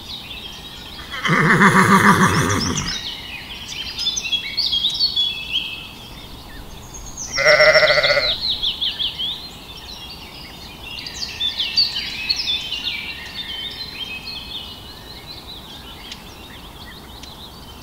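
Bleating livestock: a long, wavering bleat a second in, then a shorter bleat about six seconds later, with birds chirping throughout in the background.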